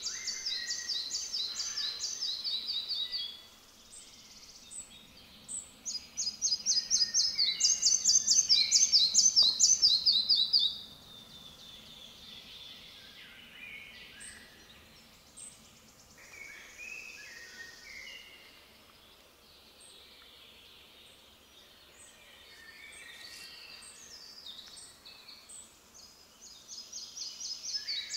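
Male red-breasted flycatcher singing: three phrases of quick repeated high notes, each falling in pitch toward its end. The second phrase is the loudest. Quieter calls of other birds fill the gaps between phrases.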